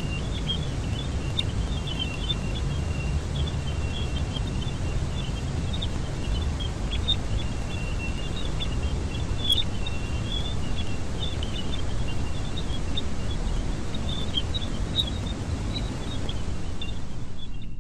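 The 'sound of Jupiter': a spacecraft's radio recording of the planet turned into audio. It is a steady low rumbling hiss with a faint steady high tone and scattered high chirps and crackles.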